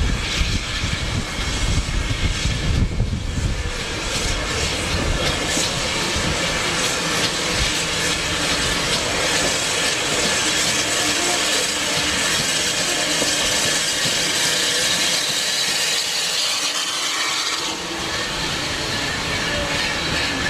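Bagnall 0-6-0ST saddle-tank steam locomotive hauling its coaches slowly past at close range. A low rumble in the first few seconds gives way to a steady hiss of steam and wheels rolling on the rails.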